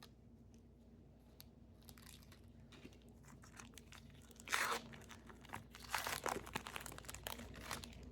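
A trading card pack's wrapper being torn open and crinkled, with rustling bursts about four and a half and six seconds in, followed by lighter crinkling.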